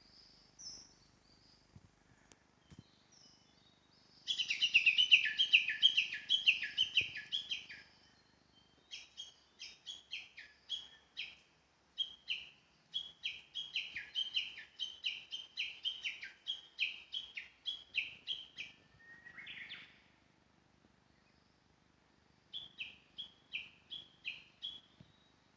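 A bird calling in long runs of quick, repeated falling notes, two or three a second, in several bouts with short pauses between them.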